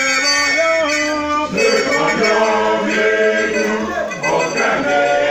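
A church choir singing together, many voices at once.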